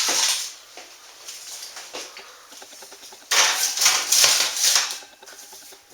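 Metal food trays being slid into a hot oven, with scraping and clattering against the oven racks. There is a short burst at the start and a longer, louder stretch of scraping and rattling from a little past three seconds in.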